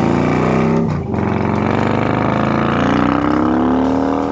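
Victory motorcycle's 1800cc V-twin engine under hard throttle. It revs up, drops briefly about a second in as it shifts up a gear, then climbs steadily in pitch again through the next gear.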